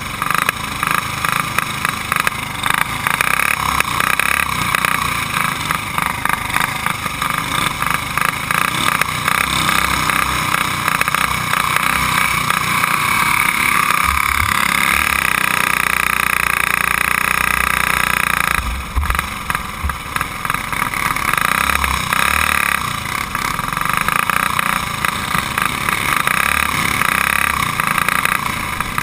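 Stock Briggs & Stratton go-kart engine at racing speed, heard close up on the kart, its note rising and falling as the throttle comes on and off through the turns. About halfway through it holds a steady note for a few seconds, then drops briefly before picking up again.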